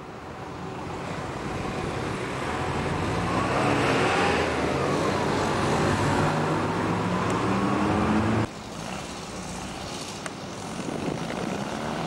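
Motor vehicle engine running close by and passing, its pitch climbing. It cuts off suddenly about eight and a half seconds in, leaving quieter road traffic.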